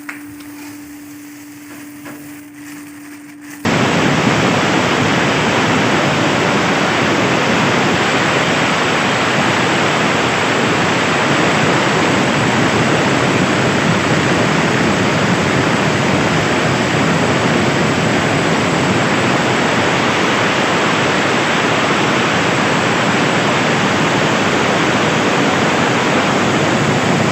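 A faint steady hum, then about three and a half seconds in a loud, even rushing noise cuts in suddenly and holds steady.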